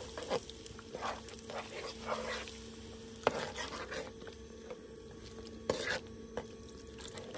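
Spoon stirring curry sauce in a cooking pot, with scattered scrapes and clinks against the pot and a faint sizzle.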